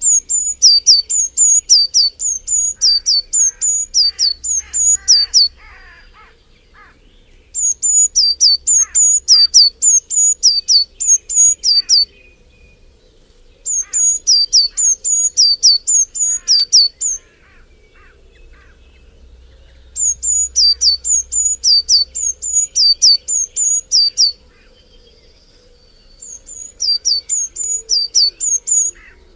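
A songbird singing loud bouts of high, sharply repeated notes, about three a second, each note dropping in pitch. Five bouts of a few seconds each with short pauses between. Fainter calls of other birds carry on behind.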